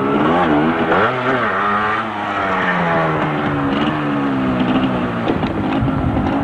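Small motorcycle's engine running as it passes and rides away. Its note rises about a second in, then falls steadily as the bike pulls off down the road.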